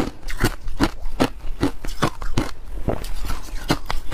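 Crushed ice being chewed, with a crisp crunch about two and a half times a second in a steady rhythm.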